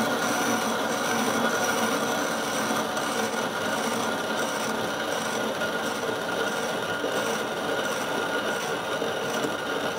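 Wug2 coffee grinder with conical burrs grinding a 17.5 g espresso dose of coffee beans at a slow 80 rpm: a steady, even grinding rasp.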